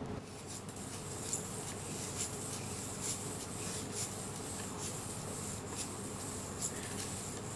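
A metal spring pushed and released in a demonstration of a longitudinal wave, its coils making faint, irregular light clicks and rustles about once or twice a second over a steady hiss.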